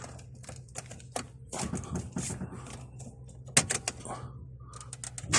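Scattered light clicks and knocks of handling, with a faint steady low hum underneath and a quick cluster of clicks near the end.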